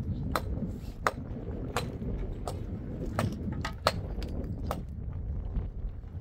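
Sharp, ringing knocks of a tool striking stone blocks, about every two-thirds of a second, coming quicker for a few strikes past the middle, over a low steady rumble.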